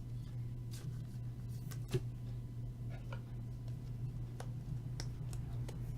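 Trading cards being handled: faint scattered ticks and light clicks, with one sharper click about two seconds in, over a steady low hum.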